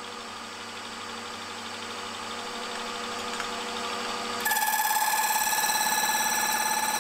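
Slitting saw, 0.9 mm wide, running on a milling machine spindle with a steady hum; about four and a half seconds in it bites into a bronze bar and a loud, high-pitched metallic ringing with a fast chatter sets in as it cuts the slot.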